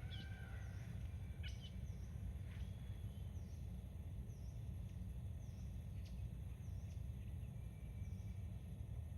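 Outdoor nature ambience: a few birds chirp and whistle in the first few seconds over a steady low rumble, while a faint high chirp repeats about once a second.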